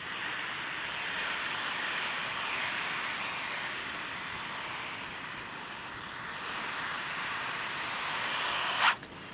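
Egg-eating snake rasping a steady dry hiss by rubbing its keeled scales together as it shifts its coils, a defensive warning display. Near the end it swells into a brief louder rasp and then cuts off suddenly.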